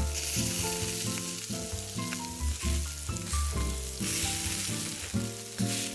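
Meat sizzling on a Korean barbecue charcoal grill, a steady hiss under background music.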